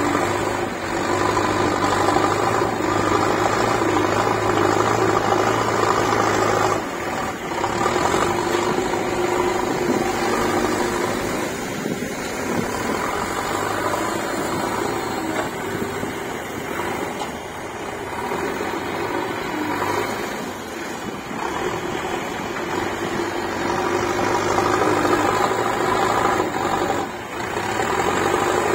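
JCB backhoe loader's diesel engine working hard as the front bucket digs and lifts soil: it runs at high revs, eases off about seven seconds in, runs lower for a long stretch, then revs up again and eases off near the end.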